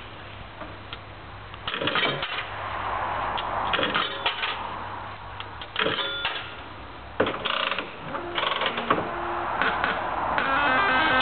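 Bally Reel Gems mechanical-reel slot machine being played: a whirring run of the spinning reels broken by several sharp clicks and clunks, with a short burst of electronic tones near the end.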